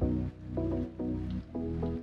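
Background music with a steady beat: a low pulsing bass under short pitched notes that change every fraction of a second.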